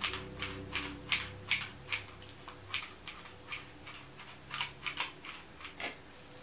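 A run of light, sharp clicks, about two or three a second, evenly spaced at first and turning uneven near the end, over a faint steady hum.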